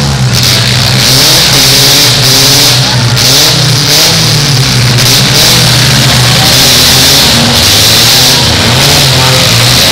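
Demolition derby car engines revving hard, several at once, their pitches rising and falling over a steady loud running note.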